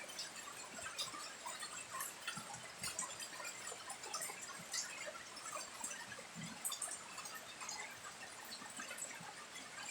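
Rain falling, with many small, irregular drips of water.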